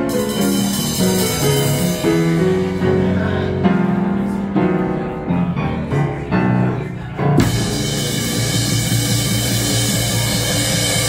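Jazz piano trio playing live: upright acoustic piano, plucked double bass and drum kit. The piano carries single-note phrases over a light accompaniment for the first seven seconds or so, then the cymbals and full drum kit come in and the band plays together.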